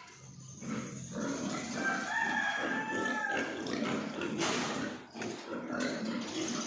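A rooster crowing once: a single held call of about a second and a half, starting around two seconds in.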